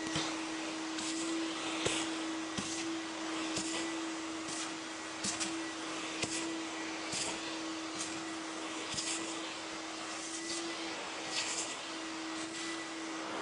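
Vacuum cleaner running while a floor is vacuumed: a steady motor hum over the hiss of suction, with short sharper rushes of air about once a second.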